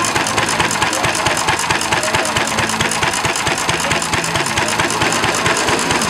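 Antique single-cylinder hit-and-miss stationary engine running, a quick regular beat of knocks.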